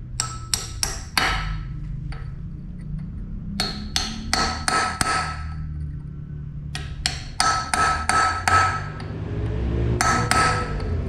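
Steel hammer blows driving M8 steel dowels into a Holden Ecotec L67 V6 crankshaft flange through the flywheel: four runs of quick sharp strikes with short pauses between them, each blow with a brief metallic ring.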